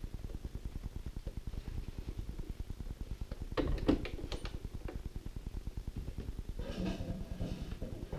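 Domestic sewing machine stitching through fabric at a steady, rapid pace, the needle strokes following one another evenly, with a few sharp clicks about three and a half to four and a half seconds in.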